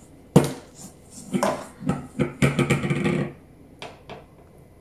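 Hands shaping sticky bread dough in a Tupperware Ultra Pro dish: soft handling and rubbing sounds, with a sharp knock just after the start and two light clicks near the end.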